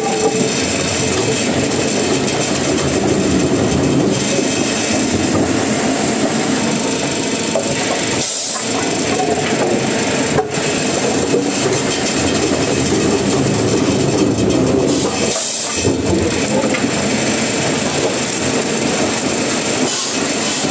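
Wood-processing machinery running with a steady, loud clattering rumble, with brief breaks about eight and fifteen seconds in.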